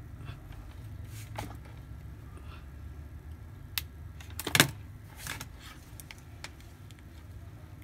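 Scattered small clicks, taps and scrapes of hands handling an opened smartphone and a multimeter's ground lead on a desk, with the loudest knock about four and a half seconds in.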